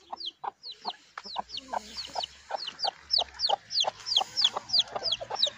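A chick peeping over and over, short high calls falling in pitch at about three a second, with a hen clucking underneath.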